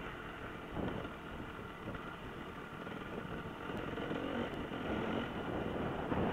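Off-road motorcycle engine running, its pitch shifting and the sound growing slightly louder toward the end.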